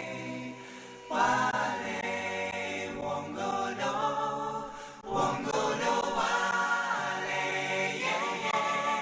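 Vocal music: voices singing in phrases, with short breaks about a second in and about five seconds in.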